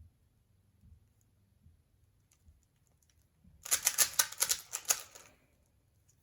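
A 3x3 Rubik's cube being turned quickly by hand: a fast run of plastic clicks and clacks lasting about a second and a half, about halfway through, with a few faint single clicks before it.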